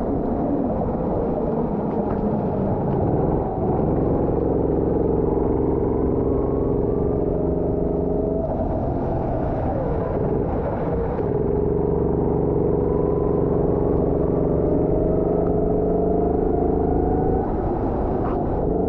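Go-kart engine running at speed, heard from on board the kart. It holds a steady note for long stretches, which dips and wavers about halfway through and again near the end before picking up.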